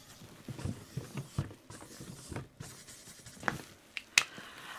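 Felt-tip marker drawing circles on a sheet of card laid on a cardboard box: faint, irregular scratchy strokes, with a sharper click near the end.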